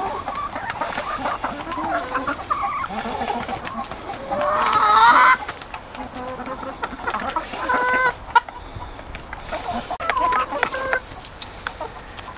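A flock of backyard hens clucking and calling while feeding, with a louder drawn-out call about four seconds in and a single sharp tap a little later.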